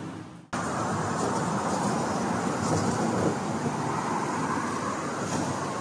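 Steady rushing noise of moving vehicles. It cuts in abruptly about half a second in, after a brief fade to quiet.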